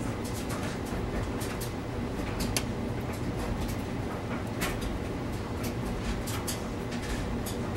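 Small screwdriver tip picking and scraping at a split retainer on a VCR tape-loading gear shaft, making irregular light clicks over a steady low hum.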